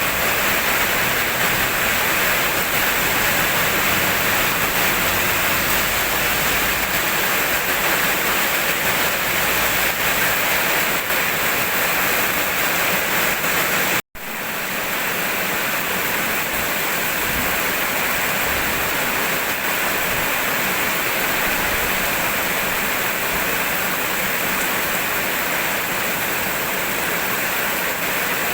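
Steady rainfall, a dense and even hiss with no thunder. It cuts out for a split second about halfway through, then resumes as before, as at the splice of a looped recording.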